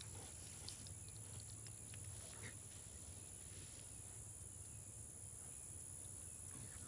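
Quiet field ambience: a steady low hum and a steady high-pitched buzz, with a few faint ticks in the first couple of seconds.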